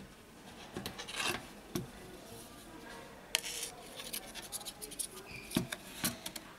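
Hands handling a smartphone's plastic mid-frame and display panel on a rubber work mat: soft rubbing and scraping with a few sharp light clicks and taps, the clearest a little past halfway and near the end.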